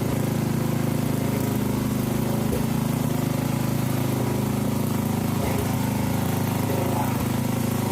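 Small tractor engine running steadily at an even, unchanging speed.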